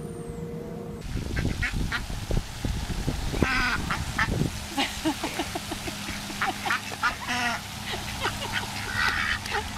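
Domestic ducks quacking repeatedly, several birds giving short calls, often in quick runs, as they crowd around someone holding food.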